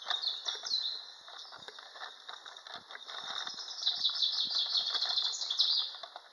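Songbirds singing in rapid runs of short high chirps and trills, loudest about four to six seconds in, with soft footsteps on a path beneath them.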